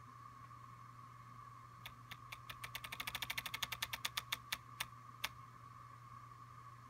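Apple Watch Taptic Engine tapping out the Breathe app's inhale cue: a run of sharp ticks that speed up into a rapid rattle, then slow and stop, about three and a half seconds long. A faint steady whine and hum sit underneath.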